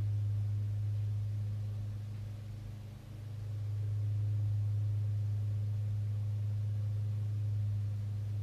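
A steady low hum that dips briefly about three seconds in.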